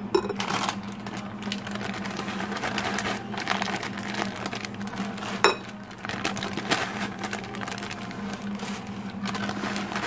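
Wire whisk beating a thick batter in a glass bowl: quick, irregular strokes of the tines scraping and clicking against the glass, with two sharp knocks on the bowl, one right at the start and one about five seconds in. A steady low hum runs underneath.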